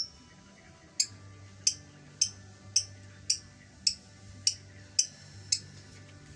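A bird's short, sharp call note repeated nine times, about two a second, used as a lure call to draw birds of the same kind. A low hum runs under the calls.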